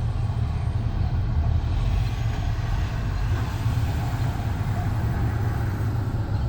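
A steady low rumble that keeps an even level throughout.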